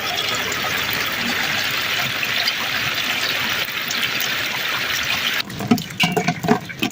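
Steady rushing of falling water. About five and a half seconds in it changes abruptly to irregular splashes and knocks.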